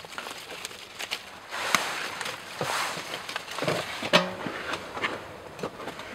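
Footsteps crunching in snow, with scattered sharp clicks and knocks and a brief squeaky tone about four seconds in.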